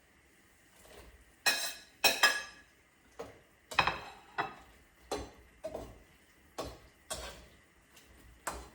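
Metal utensils and cookware clinking as shiitake mushrooms are put into a pot of hot water: about a dozen separate sharp clinks and knocks with brief ringing, the loudest two about one and a half and two seconds in.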